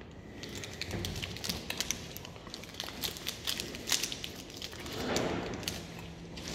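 Irregular sharp crackling clicks of a plastic snack wrapper being handled close to the microphone, with a brief muffled sound about five seconds in.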